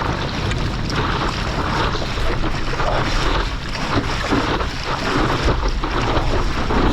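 Ocean water rushing and sloshing right around the action camera while surfing, with wind buffeting the microphone in a steady low rumble.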